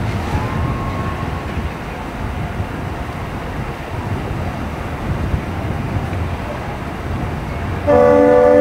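Steady low rumble of boat engines and wind, then about eight seconds in a boat's multi-tone air horn blasts loudly and holds.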